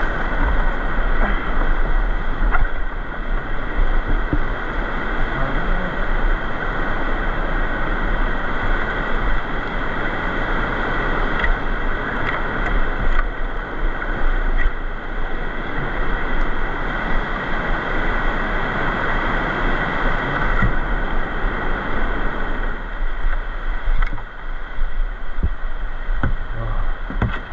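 Rushing river whitewater, a steady loud noise with a low rumble of wind buffeting the microphone, broken by a few short knocks.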